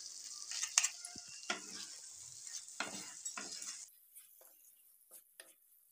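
Spatula stirring and scraping thick vegetable curry in a hot pan, with a steady sizzle under the strokes. The sizzle cuts off suddenly about four seconds in, leaving a few quieter scrapes.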